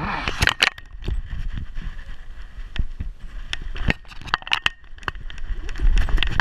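Irregular sharp clicks and knocks over a low rumble: rubbing and knocking on an action camera strapped to a dog's back as she moves about.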